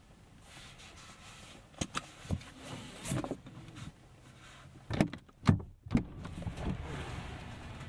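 Handling noises in a car: a few sharp clicks, then three heavy thumps about half a second apart, over a faint low hum.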